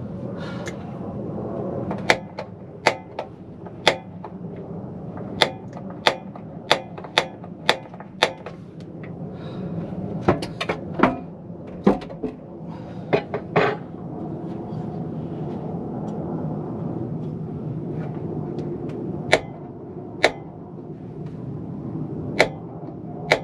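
Sharp clicks and clinks, about twenty of them at irregular spacing, from a small camper-van gas hob being handled: its lid lifted and its metal parts moved and set down. A steady low hum runs underneath.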